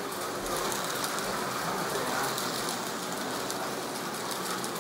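Carrera Digital slot cars running around the track out of frame, a steady rushing noise of small motors and wheels on the plastic track.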